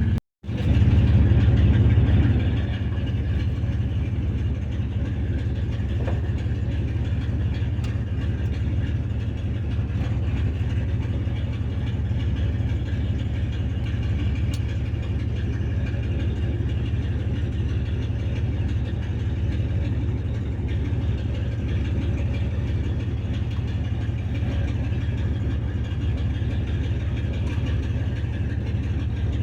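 A vehicle engine idling steadily, a little louder for the first two seconds and then holding an even low hum.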